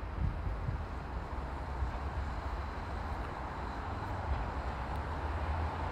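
Steady outdoor background noise: a fluctuating low rumble with an even hiss over it, with no distinct event standing out, typical of wind on the microphone and distant traffic.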